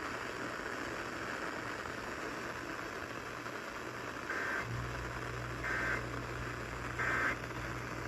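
Emergency Alert System end-of-message data tones: three short identical warbling bursts about a second and a half apart, over a steady hiss of radio noise. A low hum comes in just before the first burst ends.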